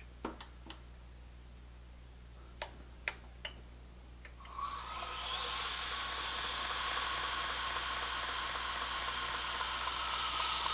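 A few light clicks of handling, then about four seconds in a knife-sharpening belt grinder starts and spins up to a steady whir.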